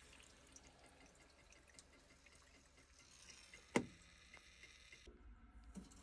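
Faint trickle of water as the combi boiler drains down through a hose on its opened drain-off point, with one sharp click nearly four seconds in.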